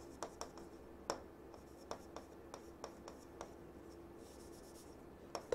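Chalk writing on a chalkboard: faint light taps and clicks of the chalk on the board, with a short scratchy stroke about four seconds in.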